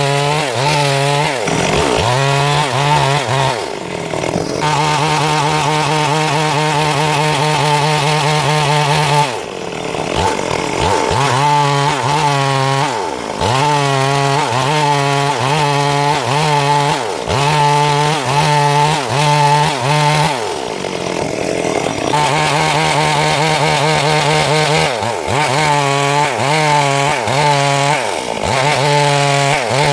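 Chainsaw cutting wood, its engine running at high revs in long steady stretches and sagging in pitch then climbing back up several times.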